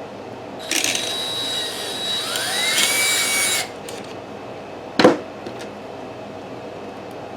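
Electric drill with a small bit running for about three seconds, widening a hole in a wooden top bar, its motor whine rising in pitch partway through. A single sharp knock follows about five seconds in.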